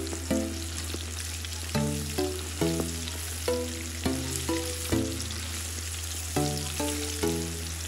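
Minced-meat balls deep-frying in hot vegetable oil in a kazan, a steady crackling sizzle. Background music with a low drone and short repeated notes plays over it.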